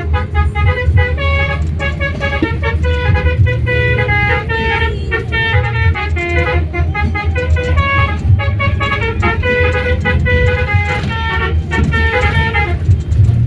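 Bus telolet horn playing a quick multi-note tune of horn tones over the low rumble of the bus engine. The tune stops near the end and the engine keeps running.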